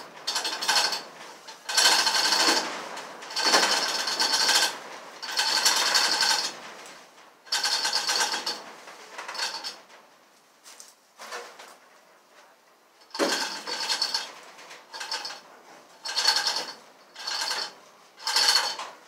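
A power wrench run in repeated short bursts of about a second each, with pauses between, driving in the body-mount bolts as the body is fastened to the frame.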